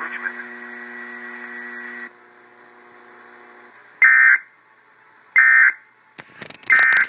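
Emergency Alert System tornado warning broadcast ending on a weather radio. A steady hum from the broadcast cuts off abruptly about two seconds in, then come three short data bursts about 1.3 seconds apart: the end-of-message code that closes the alert. A few clicks and crackles sound around the last burst.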